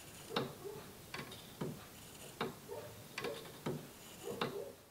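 Wooden skeleton clock's escapement ticking: the wooden pallets click against the escape wheel teeth as the pendulum swings. The ticks come at uneven intervals, the sign of a clock out of beat, with one pallet barely engaging and the other going too deep, which calls for a crutch adjustment.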